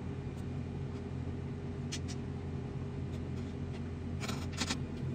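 Steady low mechanical hum of kitchen background noise. A single light click comes about two seconds in, and a short rattle of clicks, like utensils or a container being handled, about four seconds in.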